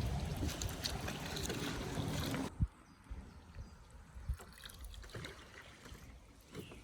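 River water running and trickling around a raft. About two and a half seconds in the sound drops abruptly to a quieter background, with a sharp knock just after the drop and a few softer knocks later.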